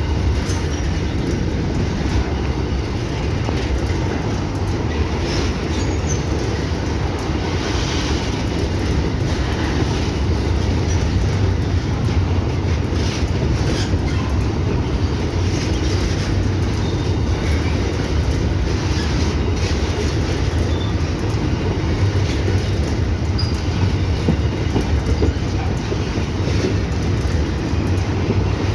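FEPASA freight train rolling steadily past: a continuous deep rumble of wagons and wheels on the rails, with scattered faint high squeaks and clicks.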